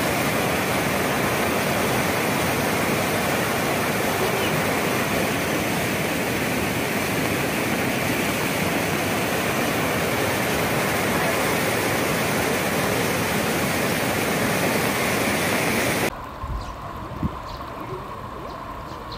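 Muddy floodwater rushing through a swollen river channel, a steady loud rush that cuts off abruptly near the end, leaving a much quieter background.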